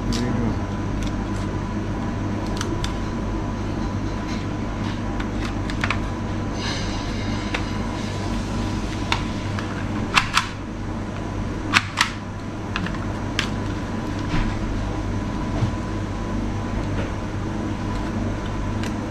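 Scattered plastic clicks and snaps from a handheld price-labelling gun being loaded with a new label roll that is still catching. The loudest are two pairs of sharp clicks past the middle. A steady fan hum runs underneath.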